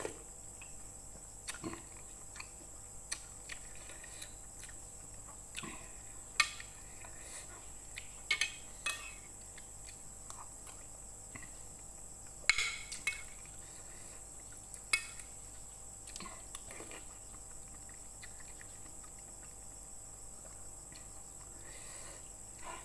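Metal spoon and fork clinking and scraping against a ceramic plate of noodle soup, in scattered sharp clinks with pauses between, along with slurping of noodles and broth.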